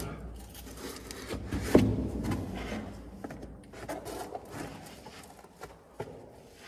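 Scuffing, rubbing and knocking of someone climbing a ladder out of an underground bunker, with one sharp knock about two seconds in, the handling sounds thinning out near the end.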